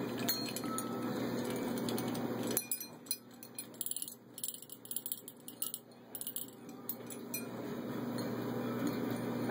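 Small brass bells and their metal chains on a hanging parrot toy clinking and jingling irregularly as a parrot swinging beside them knocks them. The clinks come thickest in the middle, over a low steady rushing noise.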